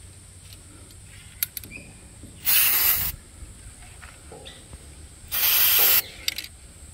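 Aerosol can of white lithium grease sprayed in two short hissing bursts, each a little under a second, onto a shock absorber's rubber bushings.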